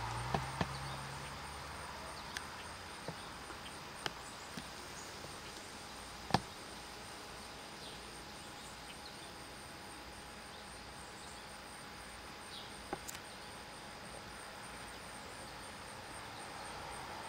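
Faint outdoor ambience with a steady high-pitched trill of insects such as crickets, broken by a few sharp clicks, the loudest about six seconds in.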